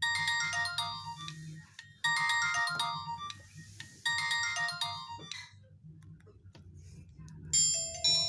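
Nokia 105 (2013) ringtone: a short phrase of quick, bright electronic notes repeated three times, about every two seconds, then stopping. Near the end a different ringtone begins, with longer bell-like tones.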